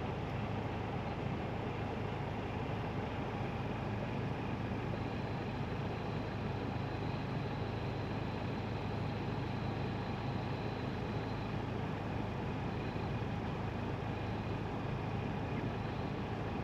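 A steady low engine rumble, idling without change.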